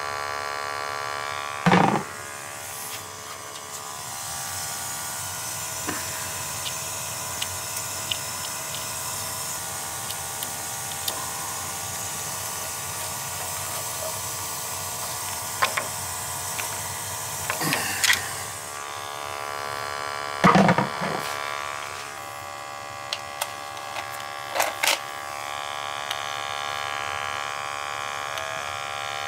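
A combustion analyzer's sampling pump buzzing steadily as it draws flue gas from the boiler during a combustion test. A few short knocks and bumps come over it, the loudest about 2, 18 and 21 seconds in.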